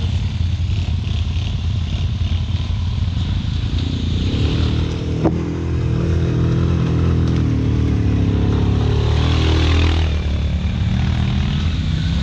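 ATV engine running steadily, its revs picking up under load from about four seconds in, with a sharp click just after five seconds.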